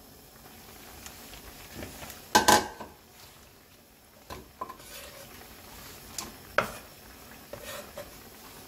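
Scattered knocks and clatters of kitchen handling: a bowl being set down and a kitchen knife tapping a wooden cutting board as green onions and chili peppers are moved and chopped. The loudest is a double knock about two and a half seconds in. A simmering stew bubbles faintly underneath.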